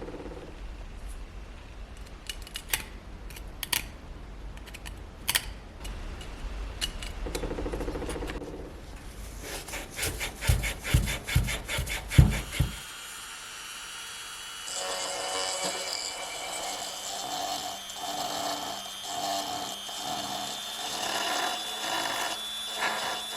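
Hand work with tools on the dagger: a few sharp clicks and taps, then quick rasping strokes with several heavy knocks around the middle, then a steadier whirring that carries on to the end.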